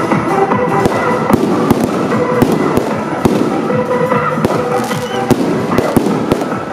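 Firecrackers popping at irregular intervals over loud music with held melodic notes.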